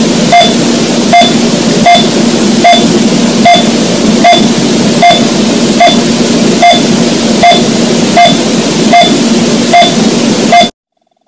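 An electronic heartbeat sound: a loud, steady static hiss with a short beep-like click repeating about every three-quarters of a second, a steady pulse of roughly 75 beats a minute. It cuts off suddenly near the end.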